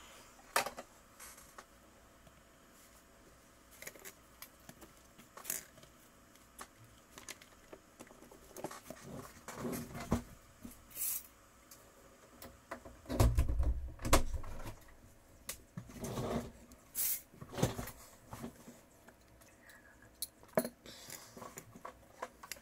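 Irregular clicks, taps and light scrapes of small tools and tablet parts being handled on a work surface during a tablet screen replacement. A heavier low knock comes about 13 to 14 seconds in.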